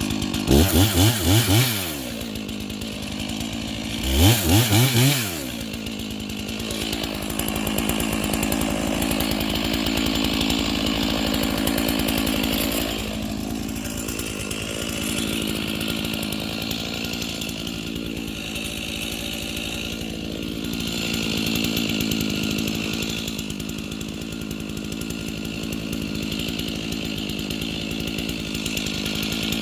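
Unmodified two-stroke chainsaw revved hard twice within the first five seconds, then running steadily for the rest of the time.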